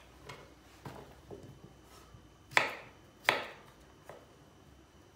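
Kitchen knife slicing a raw potato on a wooden cutting board, the blade knocking on the board at each cut: a few light taps, then two sharp knocks a little under a second apart.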